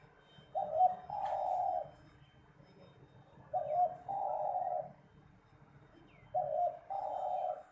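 Spotted dove (terkukur) cooing: three calls about three seconds apart, each a short broken opening note followed by a longer held coo.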